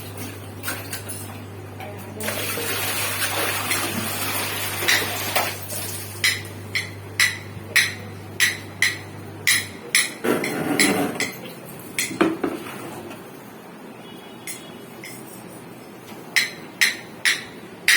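A run of sharp metallic knocks, about two a second, with a rushing noise just before them and a low steady hum that stops about ten seconds in; a few more knocks come near the end.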